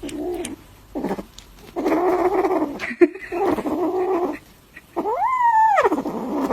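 A pet animal giving a run of drawn-out cries: two short ones, then longer ones, the last rising and then falling in pitch.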